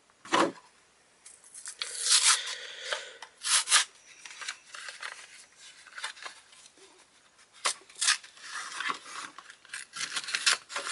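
Knife blade scraping and slicing through the plastic of a blister pack in a few strokes, then the card backing tearing away from the plastic with crackling and rustling.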